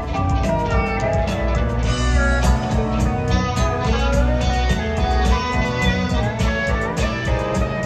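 Live rock band playing, recorded from the crowd: electric guitar over drums, upright bass and keyboards.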